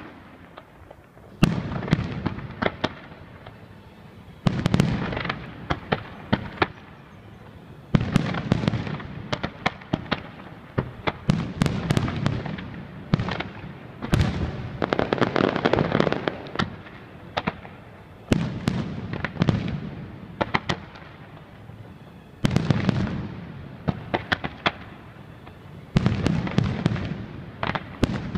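Aerial fireworks display: a fresh volley of shells bursts every three to four seconds with loud bangs, each followed by a run of sharp crackling reports and a low rolling rumble.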